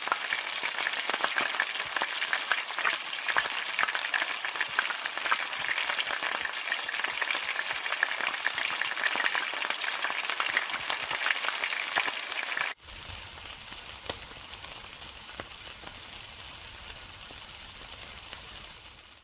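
Food frying in hot oil in a wok: a loud, dense crackling sizzle. About 13 s in it cuts off suddenly to a quieter, softer sizzle with a low hum underneath.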